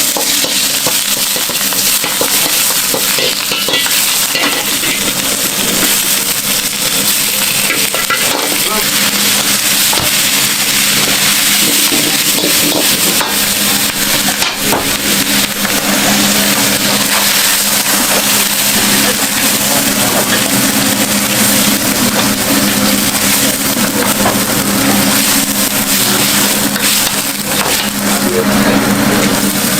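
Food sizzling on a hot griddle, a steady hiss with scattered short clicks and a low hum underneath.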